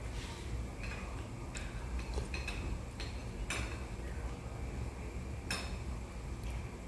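Metal chopsticks or spoon clinking and tapping against tableware, a handful of separate sharp clinks every second or so, over a steady low background hum.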